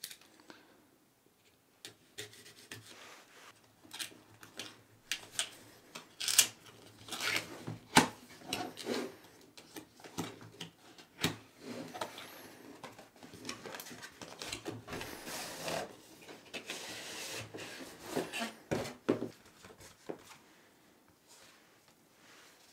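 Cardboard retail box being opened by hand: a utility knife cutting the clear seal stickers, then card flaps and an inner box sliding and rubbing, with scattered sharp clicks and scraping.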